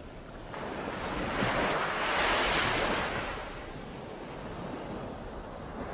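Ocean waves: one wave swells and breaks as a rush of surf about two seconds in, then washes back into a steady hiss.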